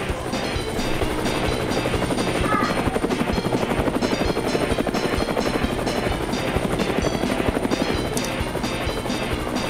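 Helicopter rotor sound effect, a fast, steady chopping, over upbeat background music.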